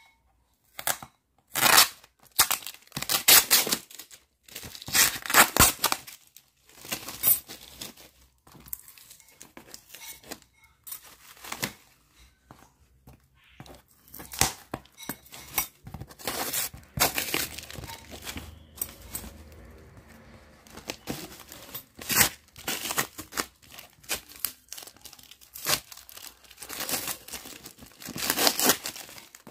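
A small cardboard box sealed with packing tape being cut with scissors and torn open by hand: a long series of irregular ripping and tearing noises, with some crinkling.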